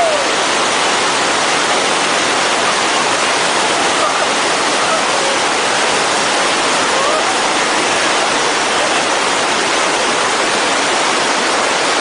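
Mountain waterfall pouring over rocks into a pool: a loud, steady rush of white water that never lets up.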